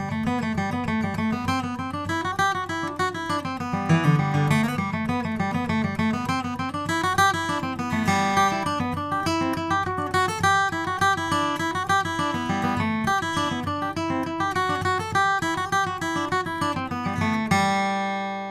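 Taylor 914ce acoustic guitar, with a Sitka spruce top and solid East Indian rosewood back and sides, played as a steady busy run of picked notes and chords. Near the end it settles on one chord that is left to ring out and fade.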